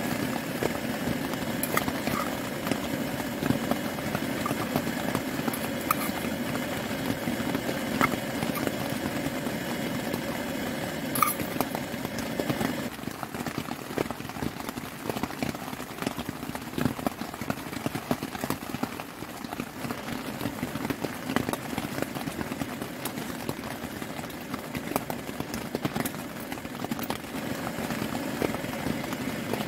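Small canister gas camping stove burning steadily under a pot of simmering soup, a constant rushing hiss, with scattered light taps and clinks. The tone of the hiss changes about halfway through.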